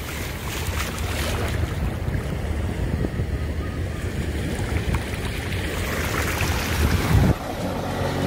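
Small waves washing in over a shallow sandy shore: a steady surf noise that grows gradually louder.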